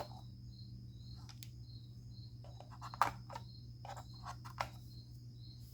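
Scattered light clicks and taps of small plastic speedometer parts being handled, the sharpest about three seconds in. Under them run a steady low hum and the faint high chirping of a cricket.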